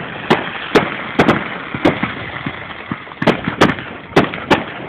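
Fireworks bursting overhead: an irregular string of sharp bangs, about nine in under five seconds, over a steady hiss.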